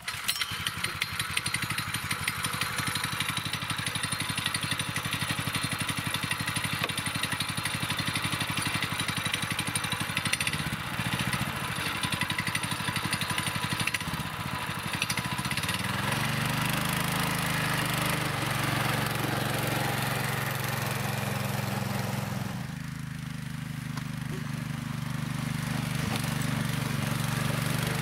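Kirov SR-21 motor all-terrain bike's Lifan single-cylinder engine running under load as it pulls away and rides off. The note steadies about halfway through, eases off briefly a few seconds later, then picks up again.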